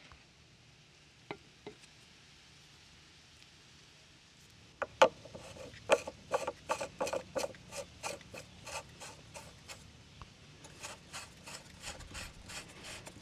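A PVC male threaded adapter, wrapped in thread tape, being screwed by hand into the threaded port of a Hayward pool pump. After a couple of light clicks, the plastic threads start clicking and rasping about five seconds in, about three clicks a second with each turn.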